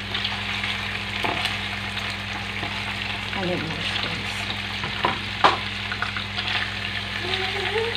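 Chicken legs sizzling steadily as they fry in a nonstick frying pan, being lightly browned, with a few sharp clicks of a spatula against the pan as the pieces are moved.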